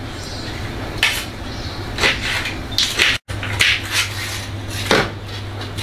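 Kitchen knife cutting through green bell peppers held in the hand, with crisp cutting strokes about once a second as pieces drop into a plastic blender jar, over a steady low hum.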